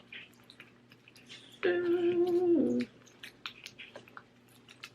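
A person hums one steady note for about a second, dropping in pitch as it ends, midway through. Around it come faint sticky clicks and squelches of slime being handled.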